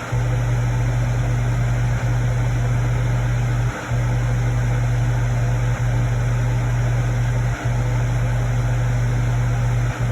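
A steady low machine hum, briefly cutting out several times at uneven intervals of about two seconds.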